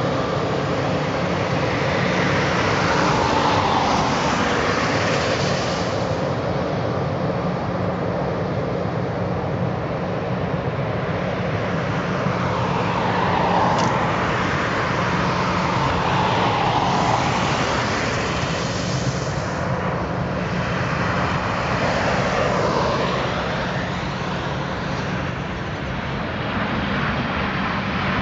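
Boeing 737-800's CFM56-7B turbofan engines on final approach: a steady jet roar and whine that swells and shifts in pitch several times as the airliner closes in.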